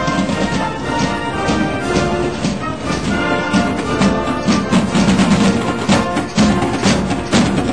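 Marching band playing, with brass and drums; the drum beats become more prominent near the end.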